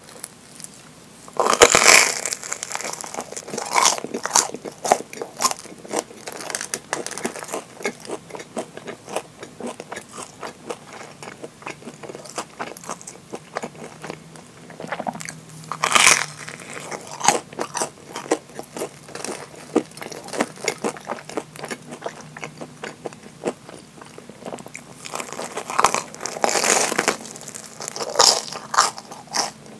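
Close-miked eating of deep-fried, breadcrumb-crusted Japanese curry bread (kare pan): crisp crunching bites into the fried crust, loudest about two seconds in, about halfway and near the end, with crackly chewing in between.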